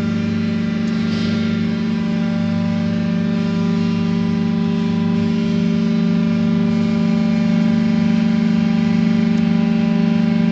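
Hydraulic goods lift travelling in its shaft, with its power pack's electric motor and pump running with a steady hum, growing slightly louder in the second half.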